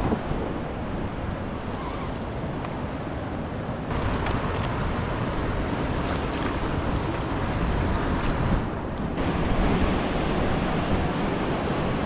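White-water rapids rushing steadily, with wind buffeting the microphone.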